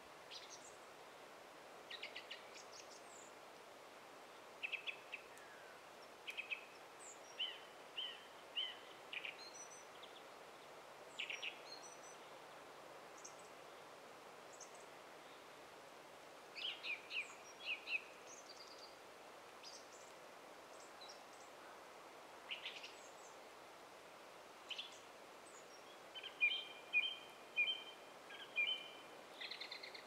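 Forest songbirds calling and singing in short, scattered chirping phrases over a steady faint background hiss. The loudest is a quickly repeated chirping phrase near the end.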